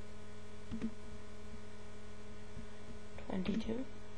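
Steady electrical mains hum in the recording, with a few faint clicks and a brief louder noise about three and a half seconds in.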